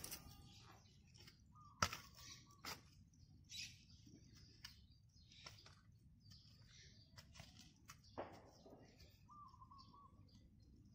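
Faint scraping and crumbling of soil with a few soft knocks as earth is pressed and worked around the base of a sapling by hand and with a plastic pipe. A bird chirps faintly twice, near the start and near the end.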